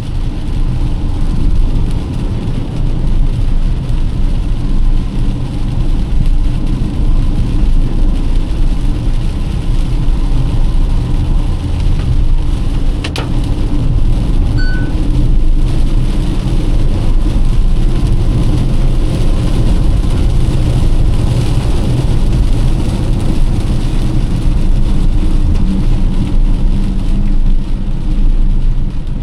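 Car driving in heavy rain: steady engine and road noise with rain, and a single sharp click about halfway through.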